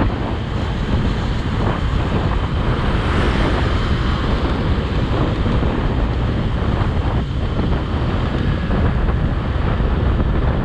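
Steady wind noise buffeting the microphone of a moving motor scooter, with the scooter's running and road noise beneath it.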